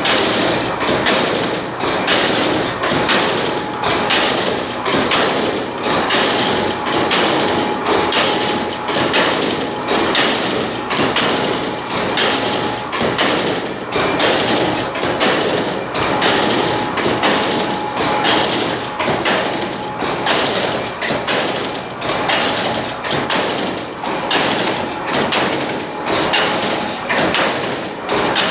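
Hexagonal wire-mesh weaving machine running, with a steady, evenly repeating metallic clatter as it works the wire.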